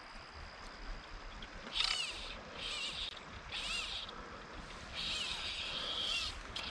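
An animal calling four times in short separate calls that bend up and down in pitch, over a faint wash of background noise.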